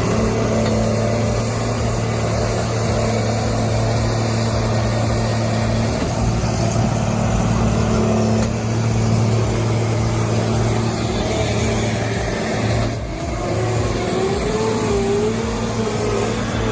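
Heavy diesel machinery engine running steadily under load, briefly dipping about three quarters of the way through, with a wavering whine near the end.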